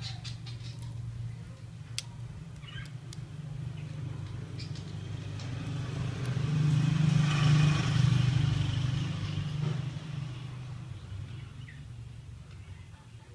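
A motor vehicle passing by: its engine and road noise swell over several seconds, peak past the middle and fade away over a steady low hum. A few sharp clicks sound along the way.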